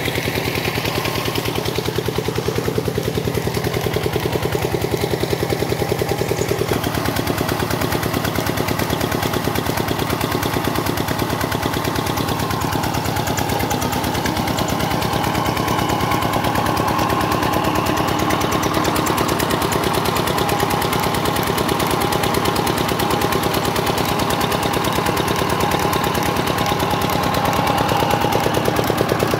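Old 25 hp Petter single-cylinder diesel engine running steadily with a fast, even knock, driving a belt-driven water pump. Water gushing from the pump outlet can be heard at the start.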